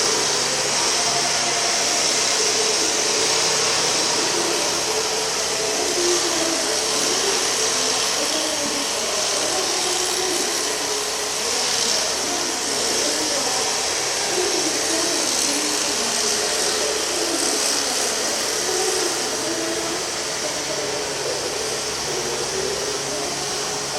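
Hino EF750 16.7-litre twin-turbo V8 diesel running steadily with a strong hiss over its rumble; the seller lists the engine as having an abnormal noise and uneven running.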